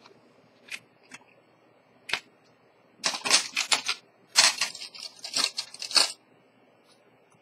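A wooden pegwood stick clicking against the open movement of an automatic watch and pushing its winding rotor round. There are a few single clicks, then two runs of rapid, dry clicking.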